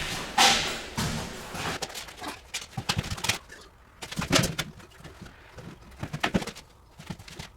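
Irregular knocks, clicks and clatter of hand work, as parts and tools are handled while the unit is taken apart.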